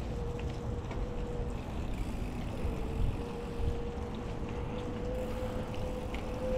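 A bicycle rolling over wet paving: tyre hiss and low rumble with a steady hum, and wind on the microphone. One brief knock about three seconds in.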